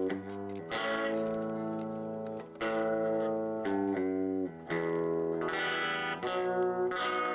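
Guitar strummed in sustained chords, the chord changing every second or two.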